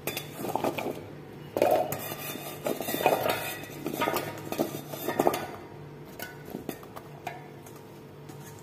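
Sliced carrot rounds tipped from a steel bowl into a stainless-steel mixer-grinder jar, clattering and clinking against the metal and the bowl rim knocking on the jar. The clatter is busiest for the first five seconds or so, then tails off to a few light taps.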